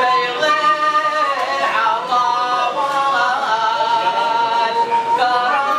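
A male munshid sings a Hadrami religious nasheed unaccompanied by percussion, holding long notes that bend and slide in pitch.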